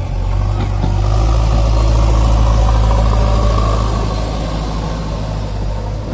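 JCB backhoe loader's diesel engine running steadily, growing a little louder about a second in and easing off again over the last couple of seconds.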